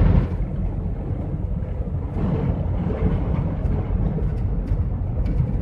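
Steady low drone of a GAZelle van driving at highway speed, heard inside the cab: engine, tyre and wind noise together.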